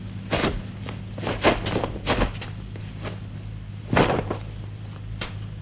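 Dubbed film sound effects from a 1970s kung fu film: about six scattered short knocks and footstep-like sounds as the fighters square off, the loudest about four seconds in, over a steady low hum.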